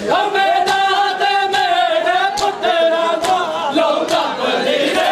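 Men chanting a noha, a mourning lament, in a sustained melodic line. Beneath it a steady rhythm of sharp slaps, about two to three a second, comes from mourners beating their bare chests in matam.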